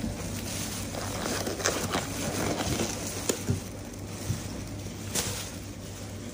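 Light handling noises, a few scattered small clicks and rustles, over a steady low hum.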